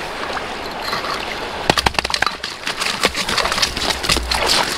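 River water sloshing and running, with a quick run of sharp knocks and splashes about two seconds in, then scattered smaller ones.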